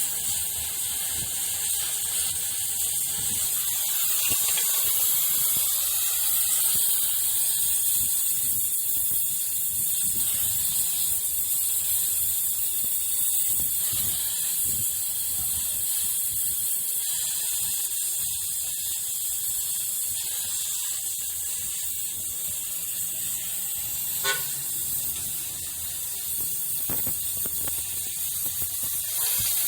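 Gas welding torch flame hissing steadily while a crack in a motorcycle part is welded, with one sharp click about three-quarters of the way through.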